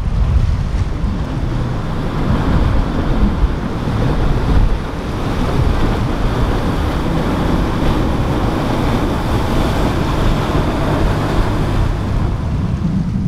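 Steady wind noise buffeting the microphone over the rush of rough water and breaking waves in a boat inlet.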